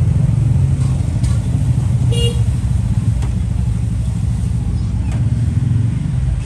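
Steady low rumble of road traffic, with a few sharp clicks spread through and a short horn-like beep about two seconds in.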